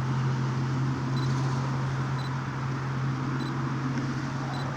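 A steady low hum over an even background hiss, with faint short high-pitched beeps about once a second.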